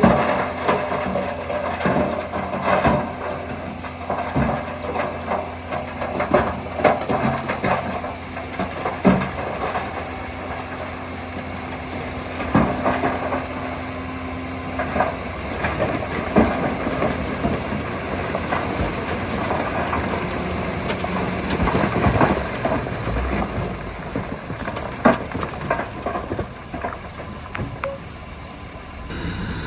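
Diesel engine of heavy earthmoving machinery running steadily, with frequent short clanks and knocks throughout. The sound changes abruptly shortly before the end.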